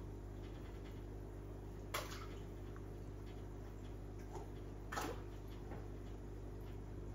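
Steady low hum of running aquarium equipment with a faint hiss of moving water, broken twice by a brief sharp click, about two and five seconds in.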